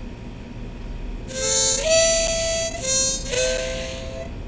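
Audacity's Change Pitch preview plays a single sound raised about eight semitones, from C sharp to A. It comes in about a second in as a few held notes that step between a lower and a higher pitch, with one slide up near the end, and then it stops.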